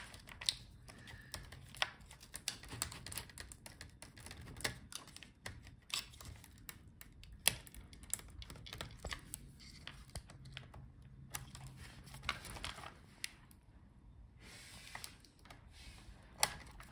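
Irregular small clicks and scrapes of a plastic pry tool and fingertips working at a stuck speaker cable connector on a laptop motherboard.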